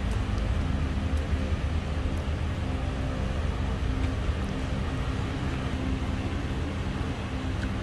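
Steady low rumble with a faint steady hum beneath it, like an engine running.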